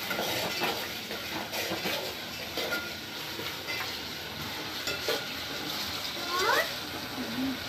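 Onion-tomato masala with ginger-garlic paste frying in oil in a pan, with a steady sizzle and a spoon stirring and scraping against the pan.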